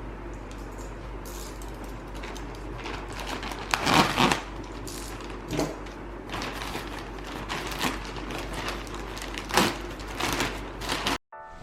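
A watch box and its packaging being handled and opened: scattered rustles, scrapes and clicks, over a steady low hum. The sound cuts out briefly near the end.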